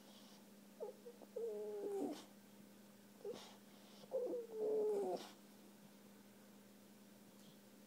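Bulldog puppy whining in two bouts, each a short whimper or two running into a longer wavering whine. He is unhappy after being neutered.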